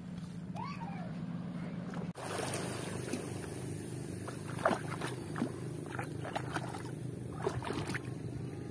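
A boat engine running steadily, with light, short splashes of feet wading through shallow seawater about half a dozen times in the second half.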